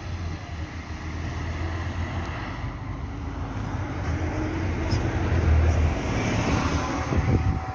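Articulated city bus driving past close by: a low steady hum from its drive under tyre and road noise, growing louder as it passes, loudest a few seconds in.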